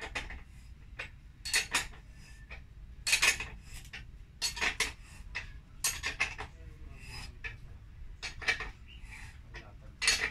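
Steel wrench clinking against the rear axle nut of a Honda CB150R as the nut is tightened: short clusters of sharp metallic clicks every second or so, one for each swing and refit of the wrench.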